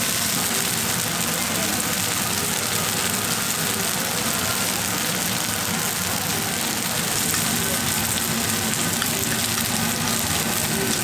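Takoyaki balls frying in oil in a takoyaki griddle: a steady sizzle.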